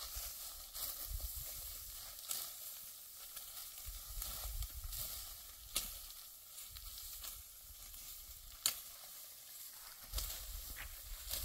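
Dry wheat stalks crackling and rustling as they are handled and cut, with a few sharp snaps, the loudest just before 9 seconds in, and low wind rumble on the microphone now and then.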